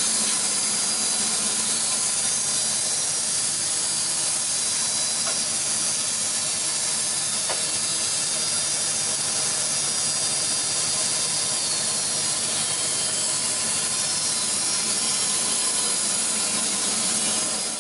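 AMIX PT-100 horizontal band sawmill running with no log in the cut, its electric motor driving the band blade: a steady hiss with a few faint steady tones.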